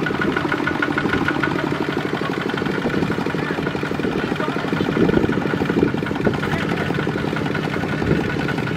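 Diesel engine of farm machinery running steadily with a rapid, even chugging beat.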